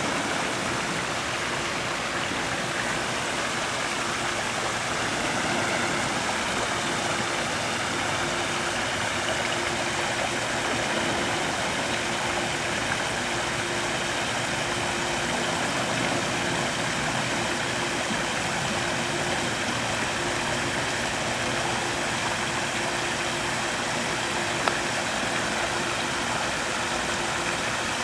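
Steady rushing outdoor noise with a faint steady hum underneath.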